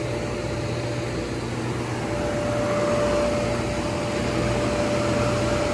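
2008 FMC M10000 30-ton air conditioning unit running on its generator set while cooling: a steady machine drone with a constant whine over it.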